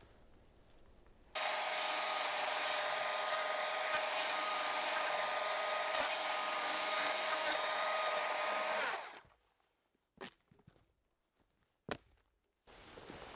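Electric power tool motor running at a steady speed with a whine, starting abruptly and then spinning down after about seven seconds.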